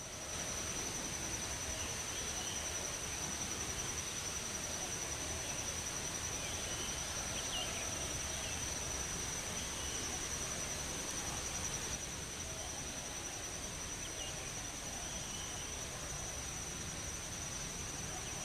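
Insects droning steadily in one unbroken high-pitched tone over a faint outdoor hiss, with a few faint short chirps now and then.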